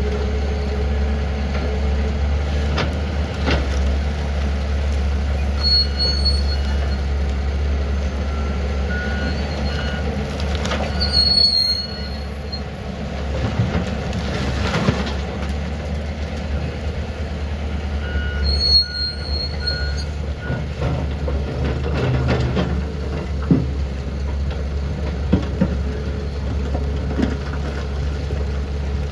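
Hitachi excavator's diesel engine running steadily under load while it loads a tipper truck, with scattered clanks and knocks of metal and material, and a few brief high squeals about six, eleven and nineteen seconds in.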